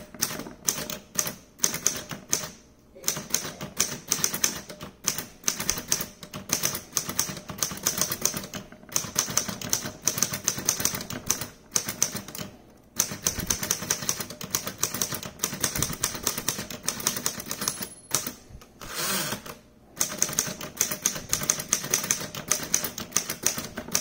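Keystrokes on a 1935 Smith-Corona Standard manual typewriter, the typebars striking the platen in quick runs of clicks, broken by short pauses.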